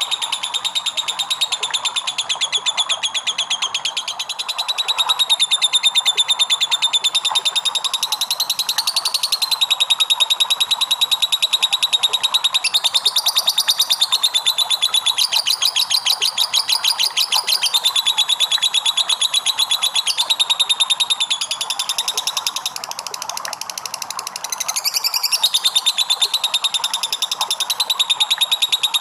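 Lovebird singing a long 'ngekek': one unbroken, very rapid chattering trill that wavers in pitch, easing off briefly about three-quarters of the way through before picking up again. This long trill is the prized 'ngekek panjang' song of a trained lovebird.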